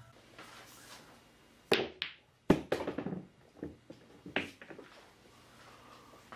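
Pool balls knocking together on a pool table: four sharp clacks over a few seconds, the loudest about two and a half seconds in, with smaller knocks between them.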